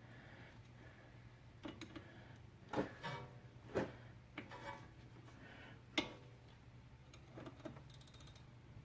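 A handful of irregular sharp metallic clicks and clinks, a few ringing briefly, from tools handled at a car's rear brake caliper, with a quick run of small clicks near the end, over a steady low hum.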